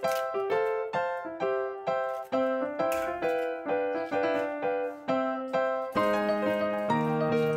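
Background piano music: a melody of single notes, each striking and fading, with lower notes joining about six seconds in.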